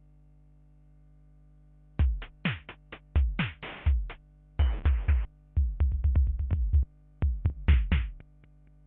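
Korg Kaossilator drum-machine and synth sounds played live on its touchpad: about two seconds of only a steady low hum, then stuttering electronic kick and noise hits in short irregular clusters, many with quickly falling pitch.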